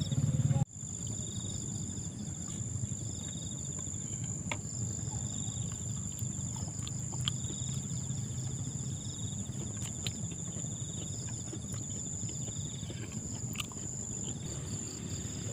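Insects calling: a steady high-pitched drone with rapid cricket-like trills that start and stop every few seconds. Under them runs a low rumble of background noise, with a few faint clicks. A louder low rumble cuts off abruptly under a second in.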